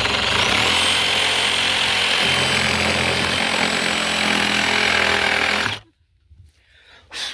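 Handheld electric power saw cutting a bird's mouth notch into a nail-filled wooden rafter, running steadily with a high whine for about six seconds before stopping abruptly. A short knock follows near the end.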